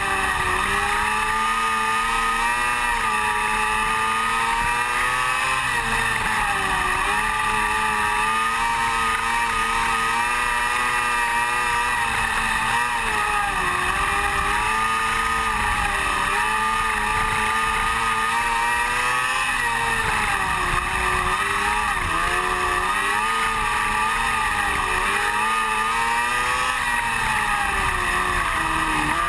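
Onboard sound of an open-wheel dirt-track race car's engine at racing speed, loud and unbroken, its pitch dropping and climbing again about every seven seconds through the laps.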